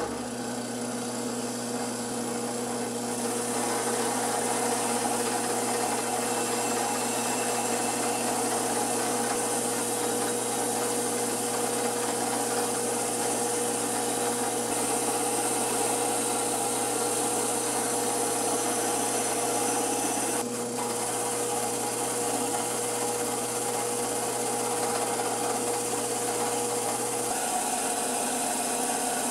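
Drill press spinning a wire wheel brush against a wrought-iron froe blade, scrubbing off surface rust: a steady scrubbing hiss over the motor's hum. It starts suddenly, and the scrubbing thickens a few seconds in as the blade is pressed to the wheel.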